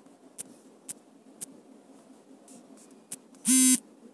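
A few faint, scattered clicks. About three and a half seconds in comes a short, loud, buzzy tone that lasts about a third of a second.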